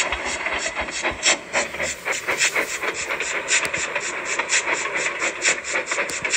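Steam locomotive chuffing at a steady rhythm, about four beats a second, over a continuous hiss.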